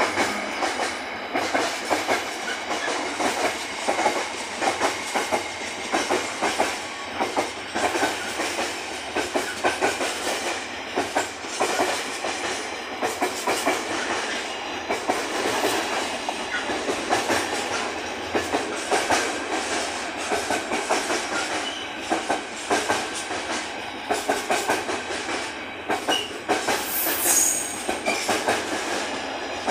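Wagons of a container freight train rolling past at close range. The wheels clatter steadily over the rail joints in a continuous rumble and rattle.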